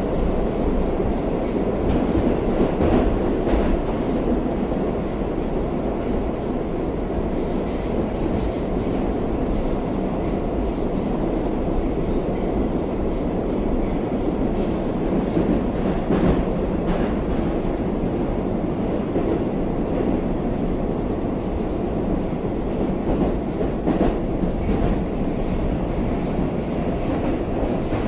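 Steady running noise of an 81-760/761 'Oka' metro train, heard from inside the passenger car as it travels between stations: a dense low rumble of wheels and running gear, with a clack from the wheels every few seconds.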